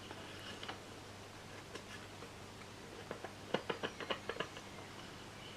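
Westminster suitcase record player's valve amplifier and speaker giving faint clicks and crackles over a steady low mains hum, with a cluster of clicks about three to four and a half seconds in. The crackling comes from an old amplifier just powered up, which the restorer thinks needs some components replaced.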